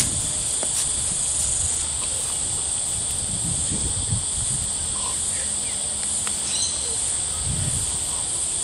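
Insects calling in a steady, unbroken high-pitched chorus, with a low rumble beneath and a few faint bird chirps about two-thirds of the way through.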